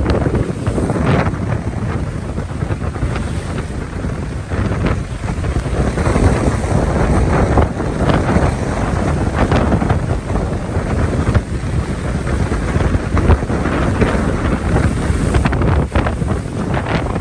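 Strong hurricane wind buffeting the microphone, with choppy waves slapping and splashing against a concrete seawall at irregular moments.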